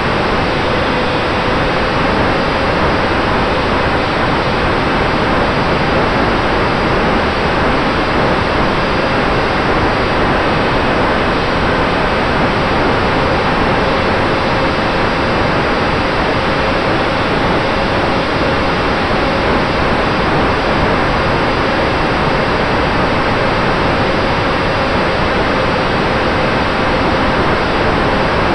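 Steady loud rush of airflow over the onboard camera of a small foam RC plane in flight, with a faint steady hum from its electric motor and propeller underneath.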